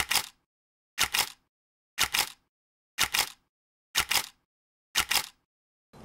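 Camera shutter sound effect, a quick double click repeated evenly about once a second, six times, with dead silence between.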